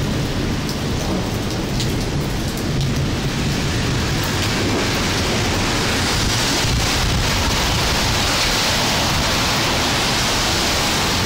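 Heavy rain pouring steadily during a thunderstorm, with a low rumble underneath; the hiss of the rain grows stronger about four seconds in.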